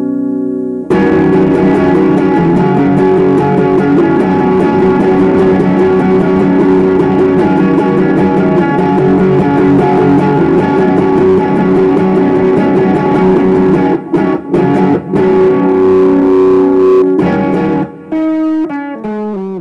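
Instrumental guitar music: a held chord rings, then steady strumming starts about a second in, with a few short breaks in the second half. Near the end the strumming stops and gives way to a run of single notes stepping down in pitch.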